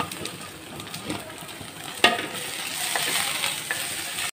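Radish sticks sizzling in hot sesame oil in a clay kadai while a wooden spatula stirs them, scraping and knocking on the clay. One sharp knock comes about two seconds in, and the sizzle is fuller after it.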